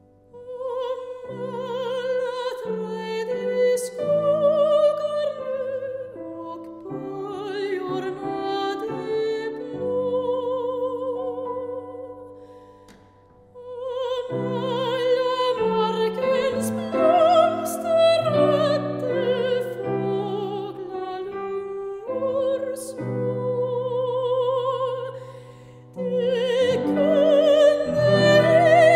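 Operatic soprano singing with a wide vibrato, accompanied by a grand piano. The voice comes in about a second in and breaks off briefly between phrases about 13 seconds in and again about 26 seconds in.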